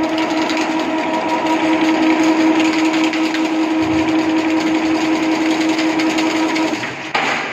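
Automatic chain-link (chicken mesh) weaving machine running: a steady motor hum under the rattle of the wire-twisting head. About seven seconds in the hum stops and a short loud clatter takes over.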